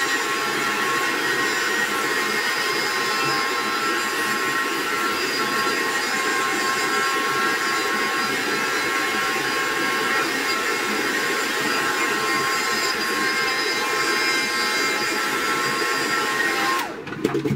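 Handheld hair dryer running steadily, blowing with a constant motor whine as it dries wet hair. It is switched off near the end and the whine falls away.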